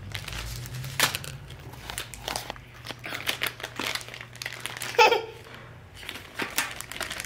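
Thin clear plastic packaging crinkling in a run of short irregular crackles as it is handled and opened by hand.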